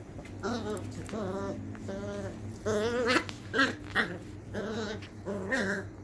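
Beagle puppies play-fighting, giving about nine short high-pitched growls and yips in a row, some with a wavering pitch.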